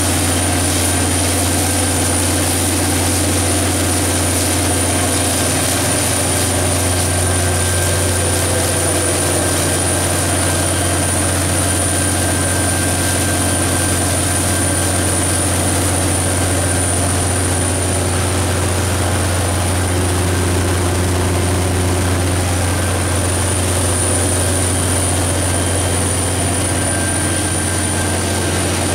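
Detroit Diesel / MTU 12V4000 V12 diesel engine of a 1360 kW generator set running steadily at constant governed speed, with a deep even hum and a thin high whine over it.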